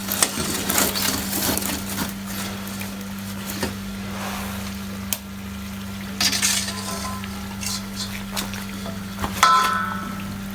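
Metal utensils scraping and clinking against a pot of frying food, in irregular strokes. One ringing clink comes near the end. A steady low hum runs underneath.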